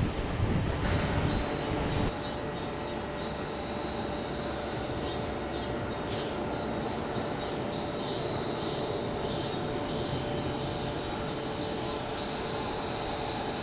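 Steady high-pitched drone of insects, with wind buffeting the microphone for the first two seconds and a faint steady tone from about a second in.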